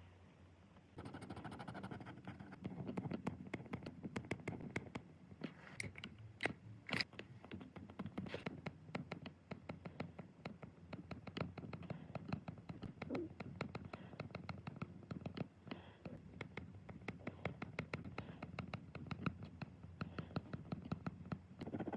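Ballpoint pen scratching across paper in quick, short strokes. It starts about a second in.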